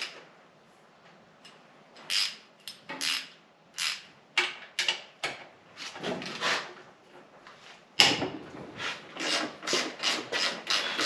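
Hand wrench working on the alternator mounting bolts of a Mercury 150 HP four-stroke outboard: scattered metallic clicks and scrapes, then from about eight seconds in a steady run of short rasping strokes, about two or three a second, as the bolt is worked loose.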